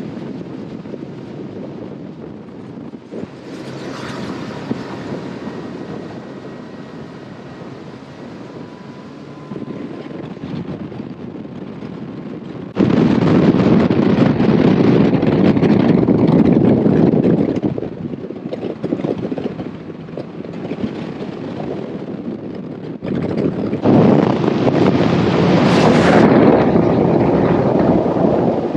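Bass boat running at speed on plane: wind rushing over the microphone and water spray along the hull, over the drone of its Mercury Pro XS outboard. The level jumps suddenly between shots, loudest in a stretch about halfway through and again near the end.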